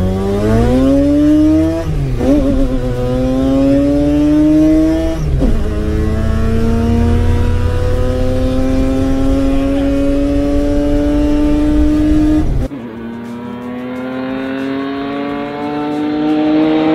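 Rotary engine of a Mk1 Ford Escort accelerating hard through the gears, its pitch climbing and dropping at gear changes about two and five seconds in, then one long climb. Near the end the sound changes abruptly, losing its deep rumble, while the engine keeps climbing.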